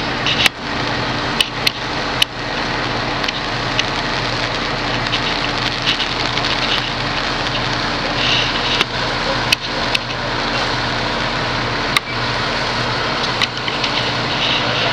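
Fire trucks' engines running steadily, a constant drone with a low hum, with a sharp knock or clank now and then.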